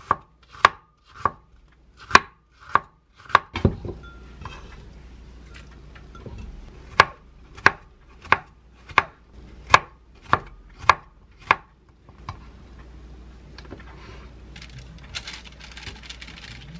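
Kitchen knife slicing onion and yellow bell pepper on a wooden cutting board: the blade knocks on the board in even strokes, a little under two a second, in two runs with a pause of about three seconds between them. The strokes stop about twelve seconds in.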